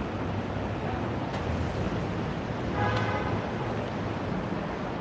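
Steady city street traffic noise with a low engine hum, and a brief higher-pitched tone about three seconds in.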